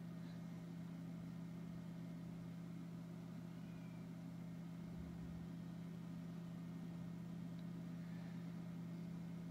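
Faint steady low hum with a light hiss underneath, unchanging throughout: background room tone, with no pencil strokes or other distinct sounds standing out.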